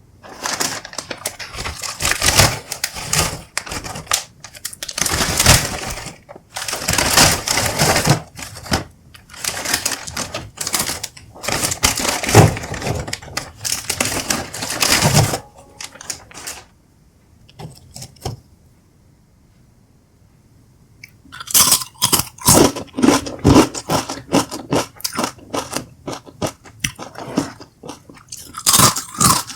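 Close-miked crunching and chewing of Doritos tortilla chips, in repeated bursts of bites. A pause of a few seconds holds only small sounds, then from about 21 seconds a denser run of crackling sets in.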